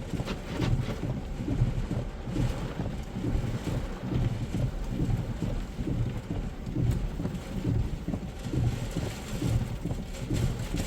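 Severe thunderstorm wind and heavy rain: a continuous rain hiss under a low, irregularly gusting rumble of wind buffeting the microphone.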